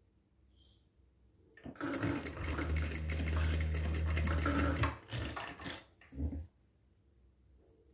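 Sewing machine stitching: quiet at first, then it runs fast and steady for about three seconds, followed by two short bursts of stitching before it stops.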